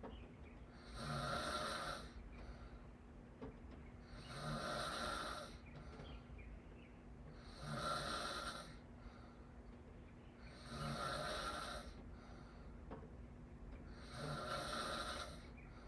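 A person snoring with the mouth open: five breathy snores, each about a second long, coming about every three seconds.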